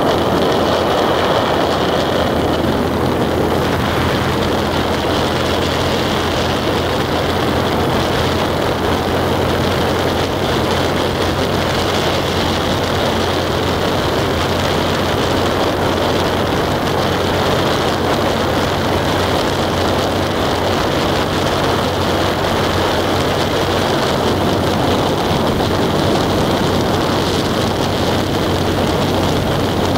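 A vehicle driving at a steady speed: an even engine hum mixed with road and wind noise, with no changes.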